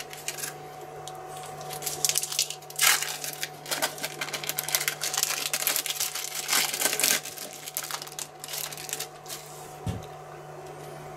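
Hands assembling a burger on a wooden cutting board: irregular rustles, taps and small knocks of bun, cheese slice and meatloaf being handled, busiest in the middle, over a steady low hum.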